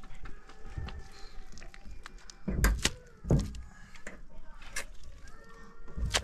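Several dull knocks or thuds: a cluster of loud ones about two and a half to three and a half seconds in, and lighter ones later.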